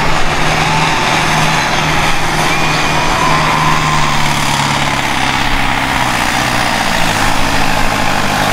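Tractor engine running hard at a pull, loud and steady, its note sagging lower from about halfway through as it works under load, with a thin whistling note rising and falling now and then.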